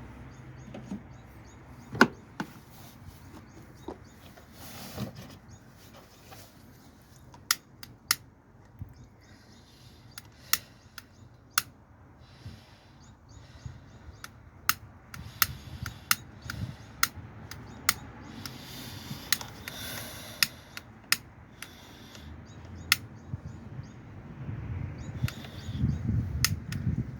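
Irregular sharp clicks and light knocks from hand work on the wiring, with a low rumbling noise building near the end.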